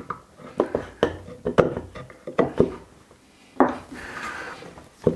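Several sharp knocks at irregular intervals as a hammer taps a screwdriver wedged under a plywood sanding disc, prying the disc off the disc sander's motor shaft. The loudest knock comes about three and a half seconds in, followed by about a second of scraping rustle.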